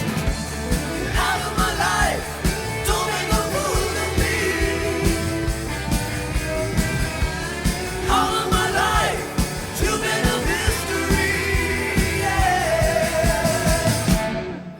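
Late-1970s studio rock song: a sung lead vocal over the full band with a steady beat. The band briefly drops out near the end.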